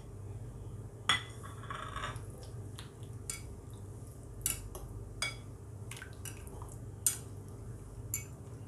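Metal spoon clinking against a glass bowl while stirring raw chicken pieces through a milk-and-spice marinade: a handful of sharp, scattered clinks, the loudest a little over a second in and about seven seconds in, over a steady low hum.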